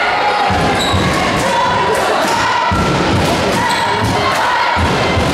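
Crowd noise in a gymnasium during a basketball game. Voices hold chant-like tones over repeated heavy, irregular thuds.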